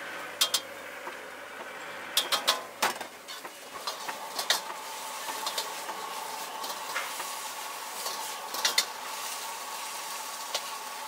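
Diced chicken, shrimp and egg sizzling in a hot wok while being stir-fried, with a metal ladle and spatula clanking sharply against the wok again and again.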